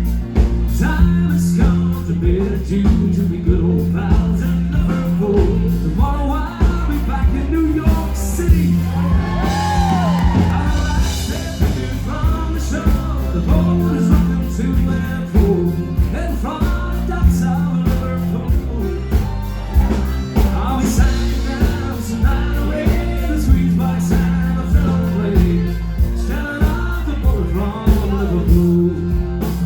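Band music with singing: an upbeat song over a steady beat and a walking bass line.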